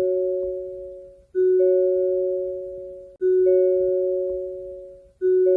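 Hyundai car door-open warning chime: a two-note ding-dong, the higher note following the lower a moment later, each pair fading away before repeating about every two seconds.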